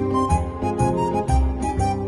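Instrumental music: a melody of steady held notes over repeated bass notes, with light percussion hits.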